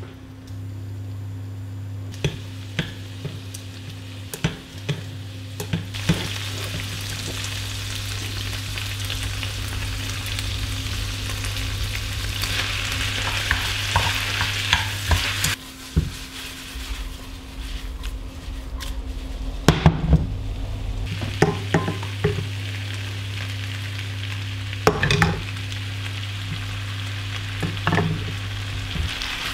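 Vegetables and noodles sizzling in a non-stick wok as they are stir-fried with a wooden spatula, with scraping and sharp knocks of the spatula against the pan. A steady low hum runs underneath.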